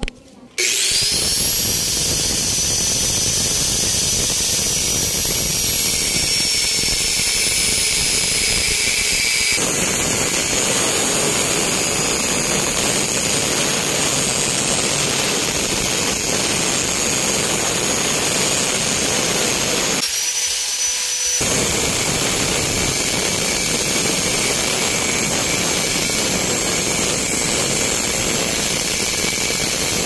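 Angle grinder with a cut-off disc cutting through the weld seams of a microwave oven transformer's laminated steel core. The grinder spins up with a rising whine about half a second in, then runs steadily under load. About two-thirds of the way through, the low part of the sound briefly drops away, then comes back as the cut goes on.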